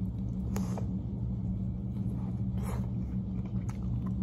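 A steady low hum, with a few short, wet mouth clicks from eating: finger-licking and biting into barbecue-sauced chicken.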